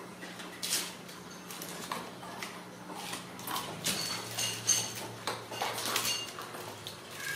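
A kitten batting a small shiny toy across the floor: a run of light taps and clinks, turning to ringing metallic clinks from about halfway in. A faint steady low hum runs underneath.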